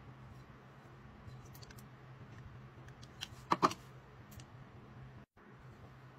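Light clicks and knocks of a lump of raw amber being handled over a small digital scale, over a steady low hum. The loudest is a sharp double click about three and a half seconds in.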